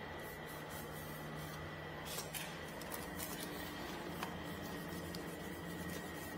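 Faint rustling of a cloth rag wiping paint off a paint shield, with a few light clicks, over a low steady hum.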